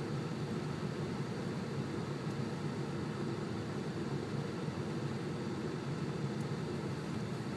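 Steady low rumble of a vehicle driving slowly, heard from inside the cab: engine and road noise with no sharp events.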